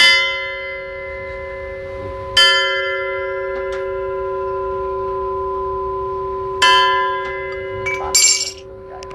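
Burmese spinning gong, a small thick bronze plate gong, struck three times; each strike rings on in a long, steady, bell-like tone. Near the end there is a brief metallic clatter and the ringing becomes quieter.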